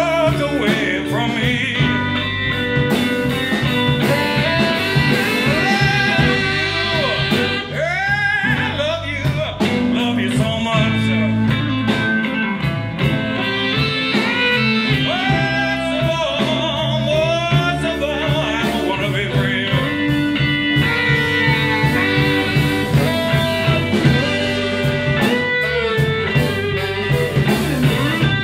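Live blues band playing: an electric guitar takes the lead with bent notes over bass and drums.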